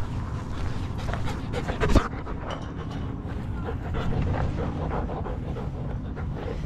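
A dog panting close by over a low rumble, with one sharp thump about two seconds in.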